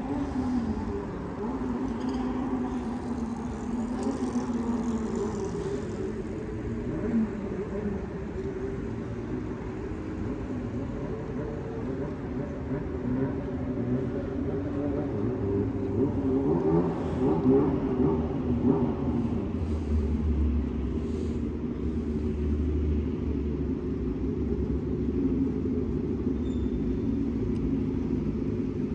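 City street traffic: motor vehicle engines running and passing, a steady low rumble that swells and shifts in pitch as vehicles speed up and go by.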